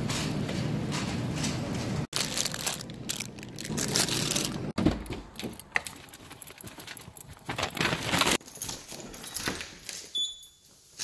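A string of short clips joined by abrupt cuts: steady grocery-store background noise, then a reusable shopping bag being handled with rustling and jangling keys. Near the end there are quieter clicks as a house door is opened.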